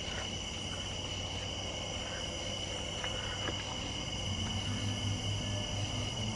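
Night chorus of crickets and other insects trilling steadily at a high pitch, with a low steady hum joining about four seconds in.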